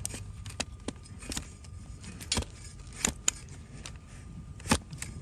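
Large flat hoof-trimming blade paring horn from a donkey's hoof, about eight sharp crisp cuts, the loudest about four and a half seconds in.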